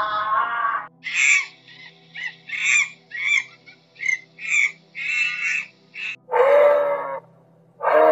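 Monkey calls: a run of about a dozen short, high, squeaky calls, after a brief call at the start, followed by a longer, lower, drawn-out call near the end, over a faint steady low hum.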